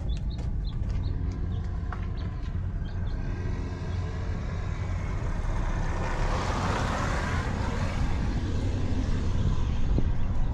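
A car passing by on the street, building to its loudest about seven seconds in and then fading, over a steady low rumble.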